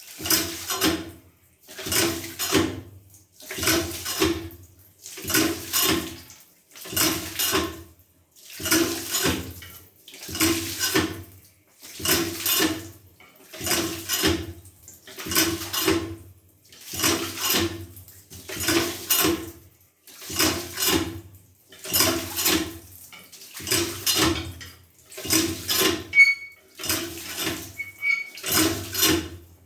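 Village hand pump worked steadily, about one full stroke every second and a half to two seconds, each stroke a burst of metallic clanking with splashing water.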